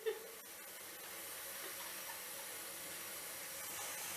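Faint, steady hiss of water in a bathtub.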